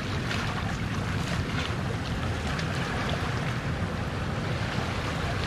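Sea waves washing and breaking on a shore, a steady rush of surf with wind rumbling on the microphone.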